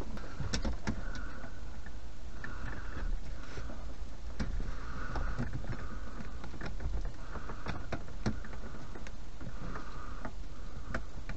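Pliers pressing a small retaining pin into a drilled hole in a plastic car-radio front, making scattered small clicks and scrapes, with a sharper click right at the end as the pin goes in. A steady low rumble runs underneath.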